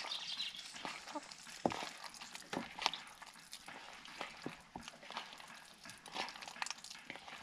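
Hands squeezing and mashing soaked tamarind pulp in a plastic bowl, working out the fibres and seeds. It comes through as scattered soft wet clicks and squelches.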